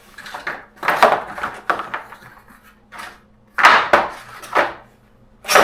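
Handling noise from the metal tool chest and its packaging: short bursts of knocking, clattering and scraping, three times, the loudest a bit after halfway.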